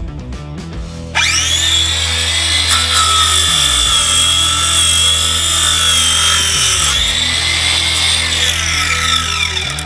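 Angle grinder powering a homemade wood saw starts suddenly about a second in with a high whine and runs at steady speed while cutting into a thin tree trunk. From about seven seconds in it winds down, its whine falling in pitch until near the end.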